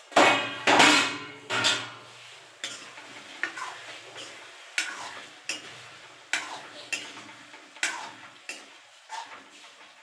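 A few loud metal clatters as the steel lid comes off, then a metal ladle scraping and clinking against a steel kadai while chicken curry is stirred, about one stroke every two-thirds of a second.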